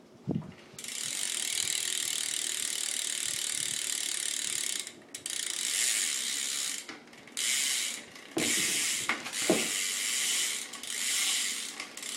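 BMX rear hub freewheeling as the wheel spins: its pawls ratchet so fast that the clicking runs together into a high buzz. The buzz stops and starts again several times. There is a thump just after the start, and a couple of knocks around the middle.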